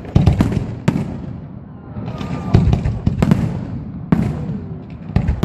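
Aerial fireworks shells bursting in a string of sharp bangs, roughly one a second, each trailing off in a low rolling rumble.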